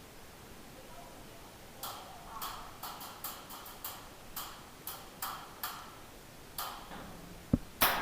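A run of short, sharp clicks at uneven spacing, about two a second, starting about two seconds in. Two louder snaps come near the end.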